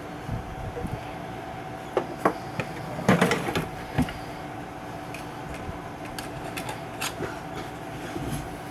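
Screwdriver clicking and scraping against the metal chassis of an old tube radio as a stubborn new part is pried into place, with a cluster of knocks about three seconds in. A steady hum runs underneath.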